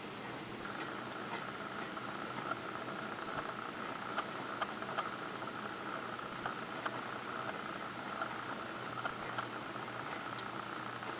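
Blizzard weather: a steady hiss of wind and blowing snow, with scattered light ticks of snow or ice pellets striking a surface.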